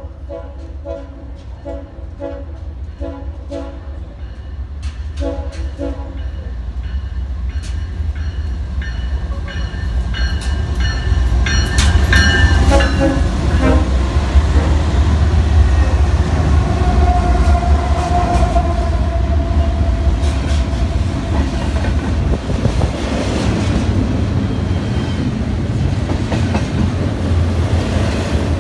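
BNSF freight train passing close by: diesel locomotives rumbling as they approach and go past, loudest about halfway through, followed by double-stack container cars clattering along the rails. Short pulsing tones sound during the first six seconds.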